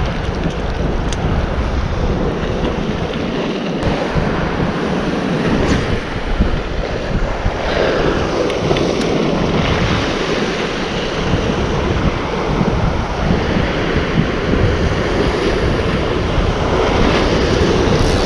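Waves breaking and washing along a rocky shore, with wind buffeting the microphone.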